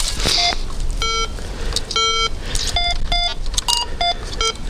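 Metal detector giving about eight short electronic beeps at a few different pitches, two of them longer and low, as the coil is swept over buried metal. The beeps signal another target in the ground.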